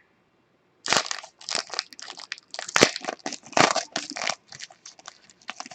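Trading-card pack wrappers being torn open and crumpled: irregular bursts of loud crinkling that start about a second in.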